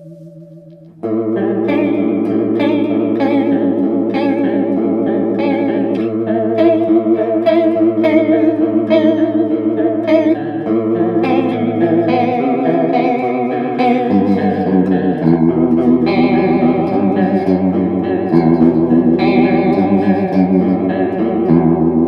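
Electric guitar, a Fender Jaguar into a Mesa Boogie Road King amp, played through an Electro-Harmonix Small Clone chorus pedal. A loud chord comes in about a second in, then sustained chords change every second or two, each with a wavering chorus shimmer.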